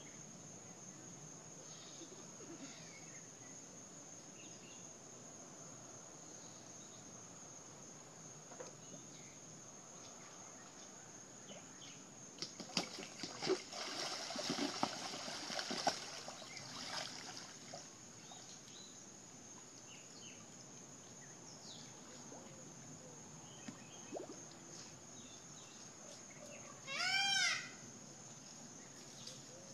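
Crocodile lunging and thrashing in shallow water as it seizes a turtle: a burst of splashing about halfway through, over a faint steady high drone. Near the end there is one short high-pitched call.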